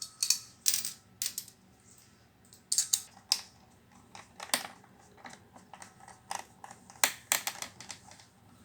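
Small metal screws and a screwdriver clicking and tinkling against an iMac's metal parts during reassembly: irregular sharp metallic clicks in clusters, the densest group near the end.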